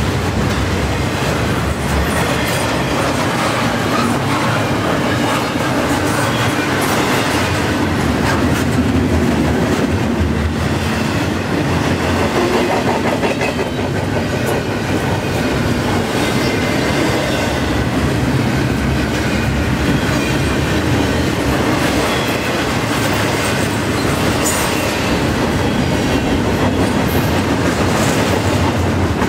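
Double-stack container well cars of a freight train rolling past at about 44 mph. Steel wheels on the rails make a steady, loud rumble.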